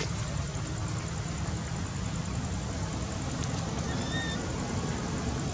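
Steady outdoor background noise, a low rumble with hiss over it, and a short high chirp about four seconds in.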